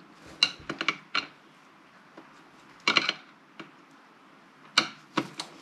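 Sharp metallic clicks and taps of a long screwdriver working a screw into the power supply's board mount inside its metal case, in three short clusters.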